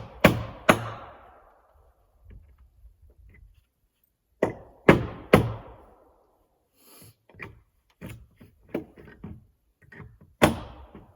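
Hammer driving nails into wood: groups of sharp blows about two a second, with lighter taps in the later part and one last hard blow near the end.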